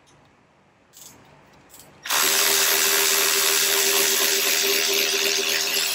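Cordless power driver whirring steadily for about four seconds, backing out an intake-manifold screw; it starts suddenly about two seconds in.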